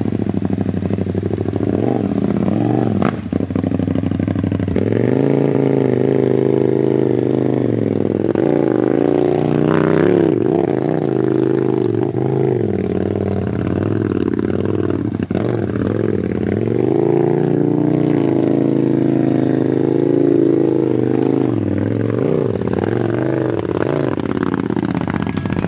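Off-road kart's 1000cc KTM engine running at low revs, its pitch rising and falling with short blips of throttle as the kart crawls over rough ground, with a few knocks from the chassis.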